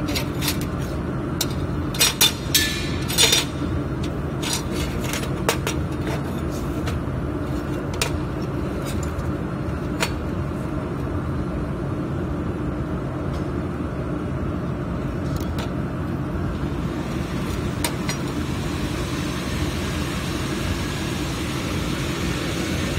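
Steady low machine hum, with a cluster of sharp clicks and clatter about two to three seconds in and a few single ticks later, as thin stainless steel sheets and a paper sign are handled.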